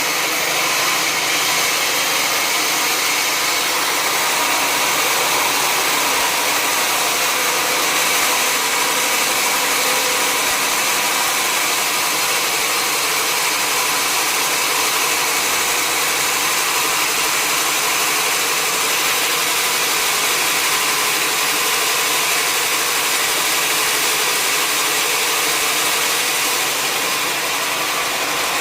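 Sawmill machinery running steadily, a constant loud mechanical noise with several steady tones and no breaks.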